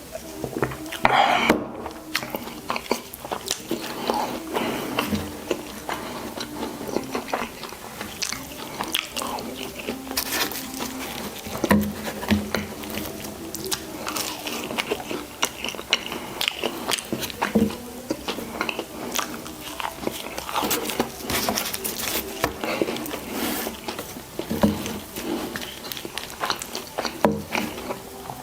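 Close-miked mouth sounds of eating a burger and fries: steady wet chewing with frequent crunchy bites and crackles throughout.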